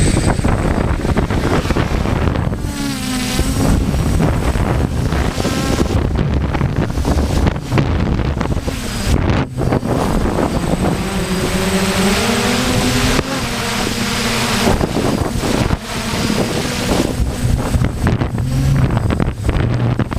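Strong gusty wind buffeting the microphone with a constant rumble. Over it, a multirotor drone's motors whine, their pitch sliding up and down as the throttle changes.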